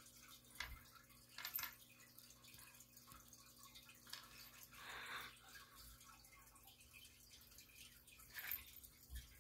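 Near silence with a steady low room hum, broken by a few faint short taps and one soft rustle of about half a second, about five seconds in.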